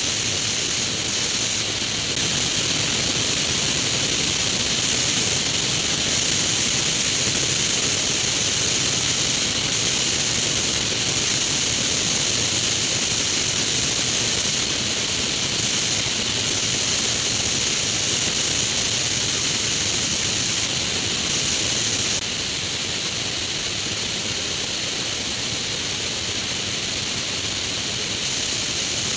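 Steady rushing of airflow over a wing-mounted camera on a Grob G109 motorglider in flight, a loud even hiss that drops a little in level about two-thirds of the way through.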